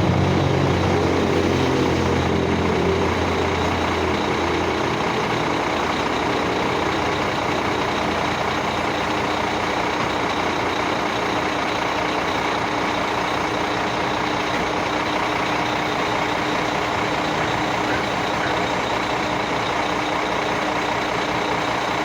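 Heavy diesel engine running, with a strong low hum that drops away about four to five seconds in, leaving a steady engine and road noise.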